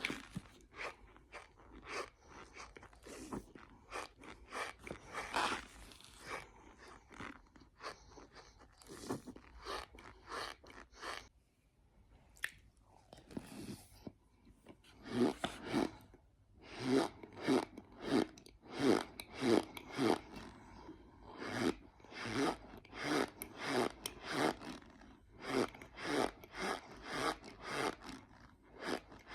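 A person biting and chewing cornstarch: squeaky, crunchy chews in quick succession. There is a brief lull about twelve seconds in, then a steady run of chews about twice a second.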